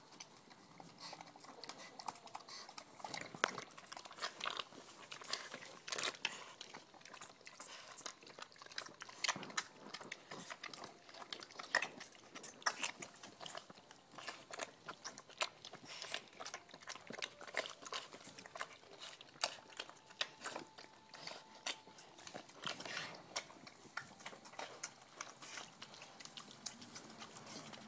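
Pigs eating slop from a bowl: chewing and crunching, a continuous fast, irregular run of small clicks.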